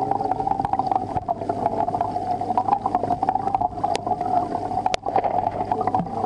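Aquarium pump running: a steady hum with a dense crackle of small clicks and water bubbling over it.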